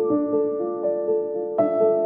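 Slow, gentle background music on a keyboard, with sustained notes and a new chord coming in about one and a half seconds in.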